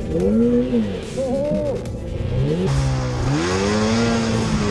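Snowmobile engine revving up and down several times, then dipping and climbing to wide-open throttle, held steady from about three seconds in, with the hiss of the track churning powder. The sled is bogging down and sinking into deep snow.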